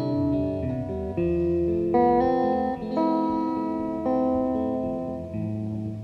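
Live folk-rock band playing an instrumental passage led by guitar, with ringing chords that change every second or so.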